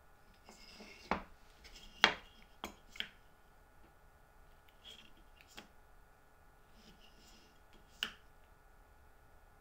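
Handling sounds of a digital caliper and planed wooden blocks on a plywood jig base: a few sharp light knocks and clicks, the loudest about two seconds in, with soft sliding and rubbing between them.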